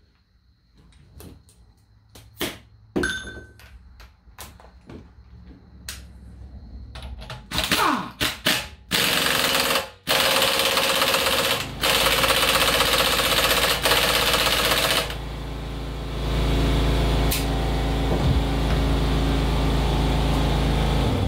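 Cordless impact wrench hammering an ARP crankshaft bolt into the harmonic damper hub of a 392 Hemi, running the bolt down ahead of torquing it to 130 foot-pounds. Light clicks and knocks come first as the tool is set up, then about seven seconds in the wrench starts rattling in several bursts, going on as a long duller run through the last six seconds before stopping.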